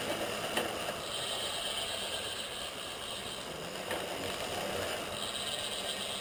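DT Swiss R1850 wheel's rear hub freewheeling, a steady fast buzz of the freehub as the wheel spins, with a faint tick twice.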